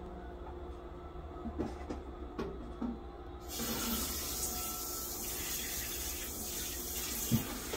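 Running water: a steady hiss that starts suddenly about three and a half seconds in, after a few faint clicks.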